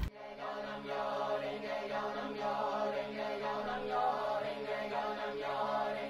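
Background music: a Buddhist-style mantra chant, voices droning on steady low notes that swell and fade every second or two.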